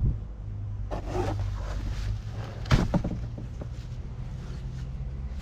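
Parts and packaging being handled: a few short knocks and scrapes, the loudest about three seconds in, over a steady low hum.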